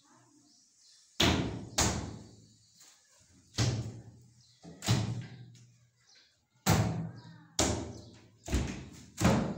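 Wooden wardrobe cabinet doors being swung shut one after another, about eight sharp knocking bangs at irregular intervals, each dying away quickly.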